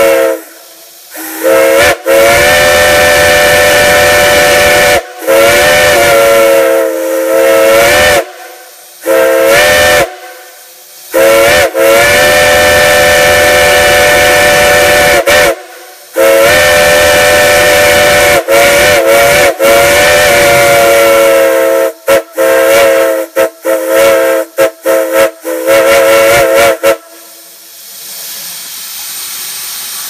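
Brass steam whistles on a steam-fed whistle manifold, sounding a chord of several notes in long blasts with short breaks, then a run of quick short toots. The whistling stops near the end, leaving only the hiss of escaping steam.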